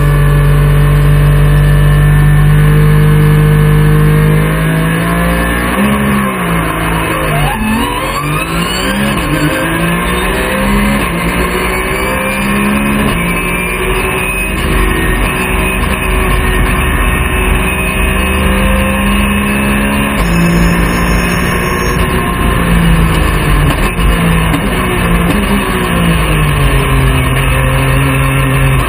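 Porsche 911 GT3 Cup race car's flat-six engine at racing speed, heard from inside the cockpit. It holds a steady high note for about four seconds, then falls, and its pitch climbs and drops repeatedly through gear changes for the rest of the time.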